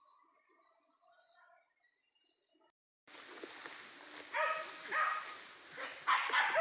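A steady high insect drone with faint bird calls, then, after a brief break about three seconds in, hunting dogs yelping and baying repeatedly over rustling undergrowth, the cries growing louder near the end.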